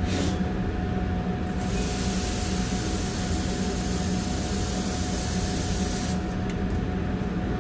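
Water running from a tap for about four and a half seconds, an even hiss that starts and stops abruptly. Under it runs the steady hum of the kitchen ventilation.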